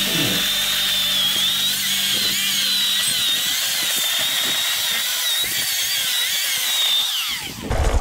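Corded Portland electric chainsaw with a 3/8 low-profile chain cutting lengthwise along a small black walnut log: a steady, slightly wavering high motor whine with the chain's cutting noise. About seven seconds in, the whine winds down in pitch and stops.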